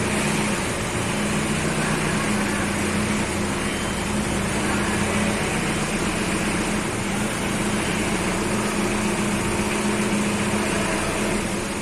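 Forklift engine running steadily with a constant low hum while unloading machinery.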